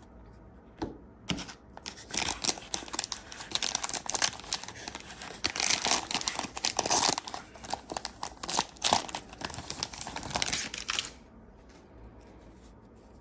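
Wrapper of a trading card fat pack being torn open and crinkled: a crackling rustle with small clicks that starts about two seconds in and stops a couple of seconds before the end.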